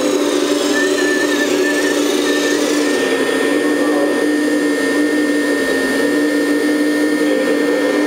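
Hydraulic pump of a 1/14-scale Lesu ET26L RC excavator whining steadily as the boom and bucket work, its pitch wavering slightly with the load.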